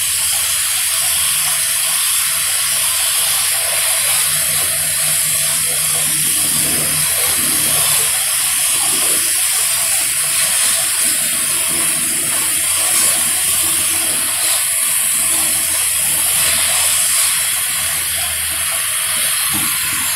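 Beef rib meat sizzling on a hot iron griddle: a steady hiss.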